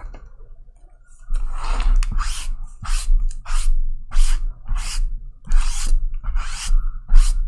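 Quick rasping, scraping strokes, about a dozen at two to three a second, starting about a second in, with dull thuds of the box on the table under them: a tool being worked across a sealed trading-card box to strip off its wrapping.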